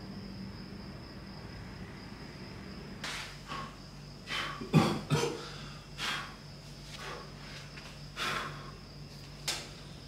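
Slippered footsteps and scuffs on a tiled floor, with a louder thump about five seconds in, over a steady high-pitched cricket trill.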